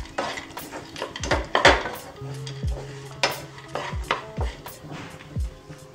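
A spatula stirring and scraping khoya with chopped cashews and almonds around a nonstick kadhai, in irregular strokes with knocks against the pan. The mixture is frying lightly in the ghee released from the roasted khoya.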